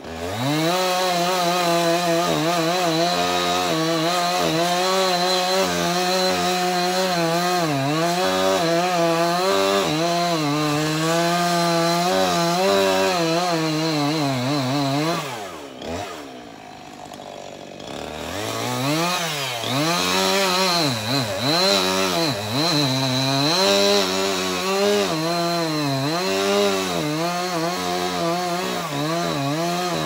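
Chainsaw at full throttle cutting into a pine trunk for a snap cut, its pitch dipping and wavering as the chain loads in the wood. About halfway it is let off to a low idle for a couple of seconds, then revs back up and cuts again.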